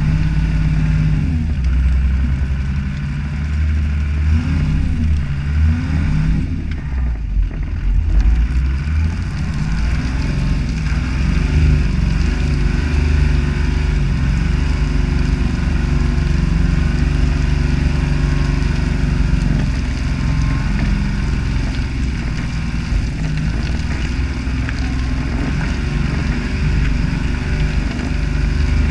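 Toyota HJ61 Land Cruiser's 12H-T turbodiesel straight-six working the truck slowly through mud, its note rising and falling through the first several seconds, then holding steadier for a while before varying again.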